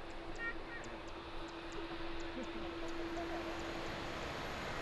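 Twin-engine jet airliner climbing away after takeoff: its engines make a steady broad rush of noise with a low steady hum under it. Faint high ticks repeat every third of a second or so. About three seconds in, the sound changes to a steadier, hissier noise with a thin high whine.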